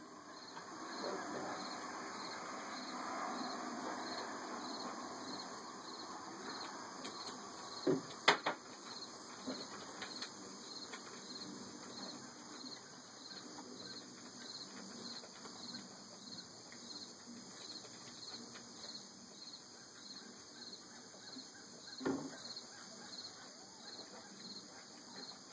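Insects chirping steadily, a high pulse repeating about twice a second, under soft scuffling as two Boston terrier puppies play with a cardboard tube on a wooden deck. A couple of sharp knocks come about eight seconds in, and another near the end.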